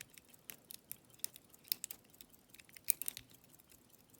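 Small, irregular clicks and scratches of a lock pick working the wafers of a Corbin wafer cabinet lock under a tension wrench, the strongest click about three seconds in.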